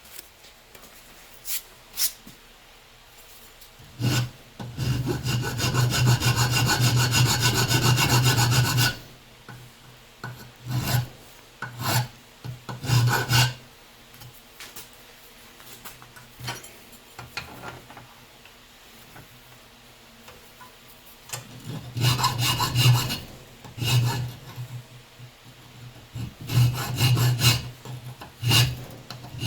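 Hand file scraping back and forth across the milled metal head of a bolt, deburring it, in bouts of strokes with a quieter pause in the middle.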